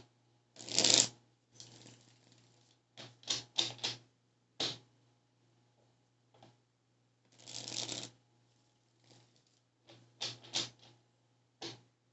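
A deck of tarot cards shuffled by hand: short swishes of cards sliding over one another and quick clicks as cards are dropped and tapped together, in irregular bursts with pauses between.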